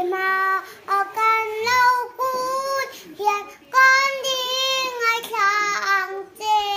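A young girl singing solo, holding long notes in short phrases with brief breaths between them.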